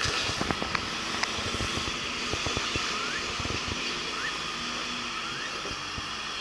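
Front-end loader engine running steadily, with scattered short knocks and clanks.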